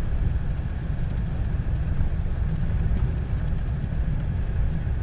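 Ford Escape driving on a dirt road, heard from inside the cabin: a steady low rumble of tyres and engine.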